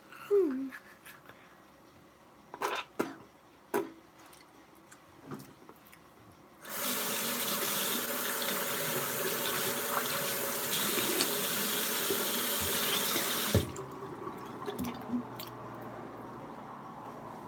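Bathroom tap running into the sink for about seven seconds, turned on about seven seconds in and stopped abruptly with a click, for rinsing after toothbrushing. A few short knocks and clicks come before it.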